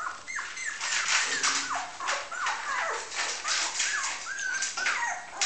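Nine-day-old puppies whimpering and squeaking: a string of short high calls, each falling in pitch, about two a second, with short rustling noises between them as the pups crawl over each other.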